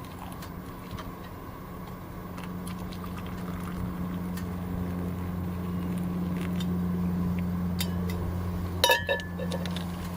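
A steady low hum that grows louder through the middle and then eases, with a sharp ringing clink, like metal or glass struck, about nine seconds in.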